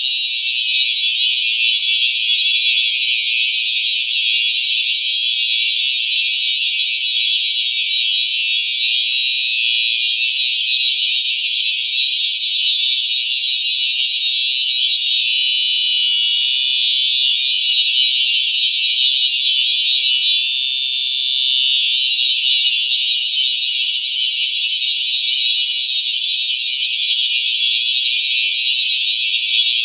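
Simplex 4903-series electronic fire alarm horns sounding continuously with a loud, squealy electronic tone that stays steady throughout.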